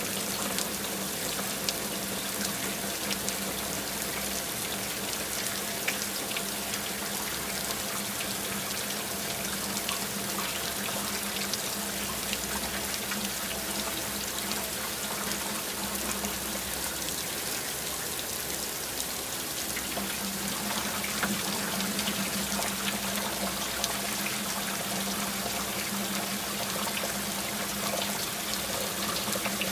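Steady rain sound effect: a constant hiss of falling rain, speckled with many small, sharp drop ticks.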